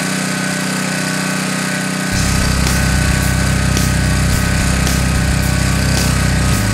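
Pressure washer running steadily. About two seconds in, a deeper low note comes in and the sound grows a little louder.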